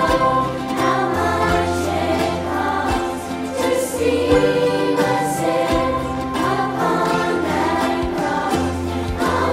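Children's choir singing a song with instrumental accompaniment, over a low bass line that holds each note and steps from one pitch to the next.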